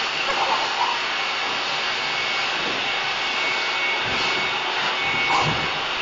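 Pet grooming dryer blowing steadily through its hose nozzle: a continuous rush of air with a faint high whine on top.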